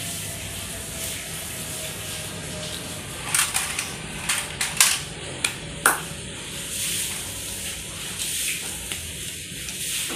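Plastic toys knocking and clattering against a tiled floor: a cluster of sharp clicks and knocks in the middle, over a steady hiss.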